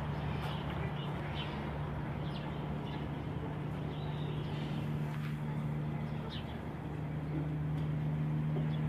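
A steady low motor hum, even in pitch, with a few short, faint bird chirps over it.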